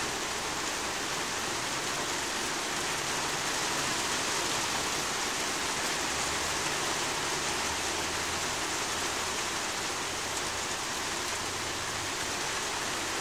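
Heavy rain falling steadily on a plastic roof and a concrete patio, an even continuous hiss.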